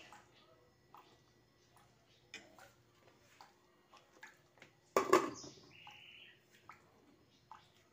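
Light, scattered clinks of a metal ladle against a metal soup pot and plate, with one louder metallic clatter about five seconds in.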